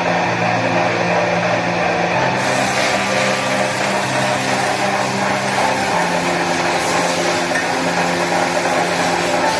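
Lathe running steadily while a hand-held turning tool cuts into a spinning wooden disc.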